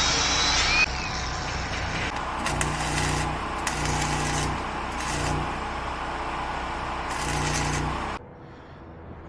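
Arc welding in short bursts: four brief runs of crackling over a steady machine hum, as of tack welds. A louder whining tool noise stops about a second in, and the hum cuts off sharply near the end.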